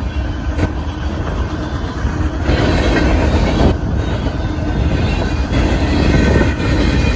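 Freight train boxcars rolling past at a grade crossing: a loud, steady rumble of steel wheels on rail, with a few brief knocks as the wheels clack over the rail joints and crossing.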